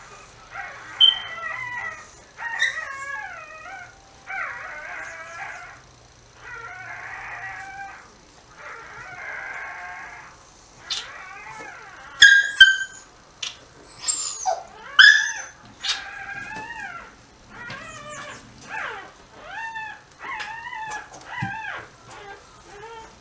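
Newborn dachshund puppy whining and squealing in short, high cries while it is rubbed briskly in a towel, with bursts of towel rustling in the first half. The loudest cries come about halfway, then a run of short cries at about one a second. The whining is taken as the puppy clearing its airway.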